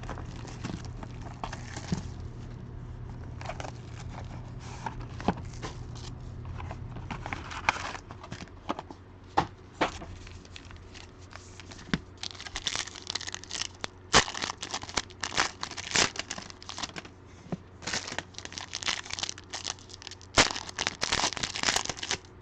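Plastic shrink wrap and card-pack wrappers crinkling and tearing as a sealed hobby box of football cards is opened. The crackling is sparse at first and grows dense and louder over the second half. A low steady hum underneath cuts off about seven seconds in.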